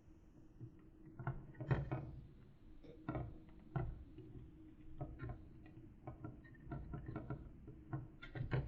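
Irregular light clicks and taps, a few louder knocks among them, over a faint steady hum.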